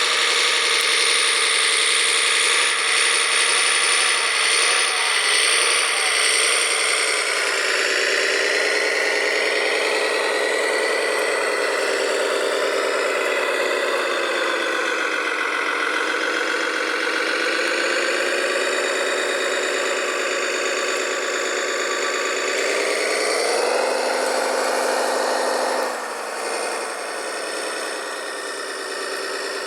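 Engine sound of a large-scale RC truck or construction machine, running with its pitch slowly sinking and rising. It rises briefly about 24 seconds in and drops back two seconds later.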